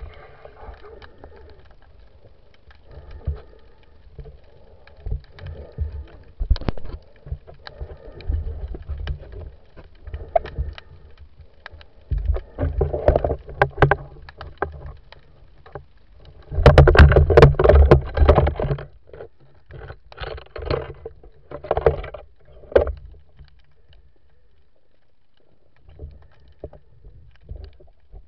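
Muffled underwater handling noise from an action camera in its waterproof housing: irregular knocks, low thumps and rushes of water, with a longer, louder stretch about two-thirds of the way in.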